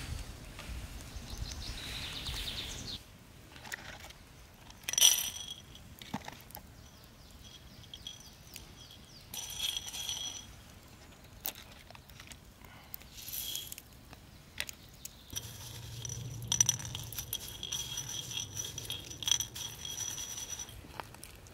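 Tiger nuts and hemp seeds dropped into and rattled around a small stainless steel bowl, which rings with the same clear metallic tone after each clatter. The loudest clatter comes about five seconds in, and a longer spell of rattling and ringing runs through the last third.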